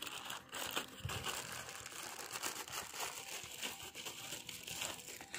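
Irregular crinkling and rustling, a dense run of small crackles and clicks.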